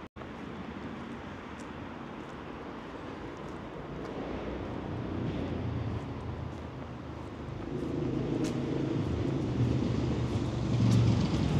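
City street traffic: a motor vehicle's engine rumble grows steadily louder through the second half as it draws near.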